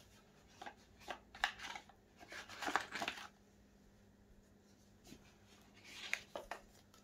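Gloved hands sliding a paper card out of a cardboard box and handling it: soft rustling and scraping of paper on cardboard, in a spell of a couple of seconds starting about half a second in and a shorter one near the end.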